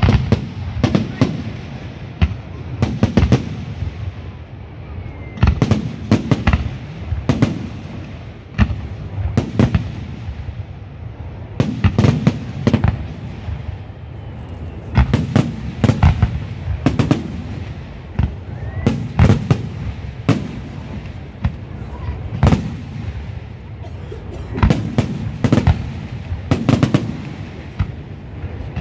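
Fireworks display: aerial shells bursting one after another, sharp bangs often in quick clusters, with a low rumble between them.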